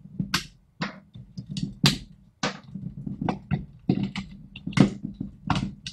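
Plastic control knobs being pulled off the front-panel shafts of a Tektronix TDS 210 oscilloscope: a series of about a dozen short, irregular clicks and scrapes.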